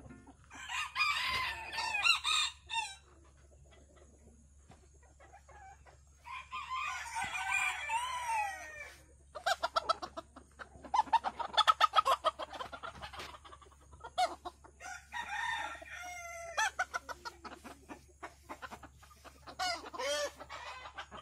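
Chickens calling: roosters crowing and hens clucking, with a loud burst of rapid clucking about halfway through.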